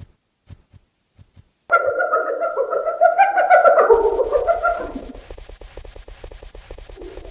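Giraffe call: a wavering moan about two seconds in, passing into a low rattling snort that fades away. A few soft knocks come before it.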